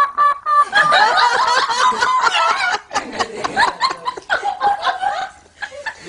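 Rose-ringed (Indian ringneck) parakeet chattering: rapid, high-pitched, wavering vocalising that runs almost without a break, with a brief pause about three seconds in.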